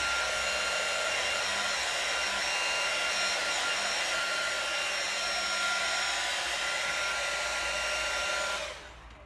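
An old hand-held hairdryer running, a steady rush of air with a few steady whining tones, blowing on a plastic hose to soften it. It is switched off near the end.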